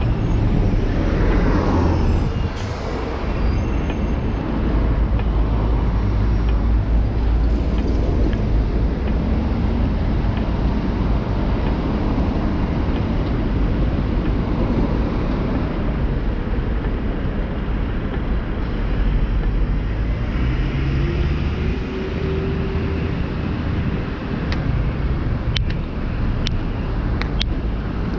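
City street traffic: motor vehicles running and passing with a steady low rumble. About two-thirds of the way through a brief steady whine rises out of it, and a few sharp clicks come near the end.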